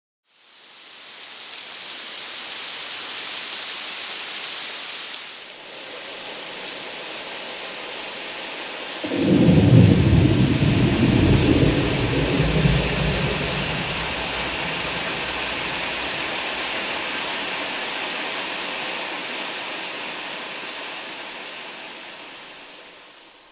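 Steady rain falling, fading in at the start; about nine seconds in a long, low rumble of thunder rolls and slowly dies away under the rain, which fades out near the end.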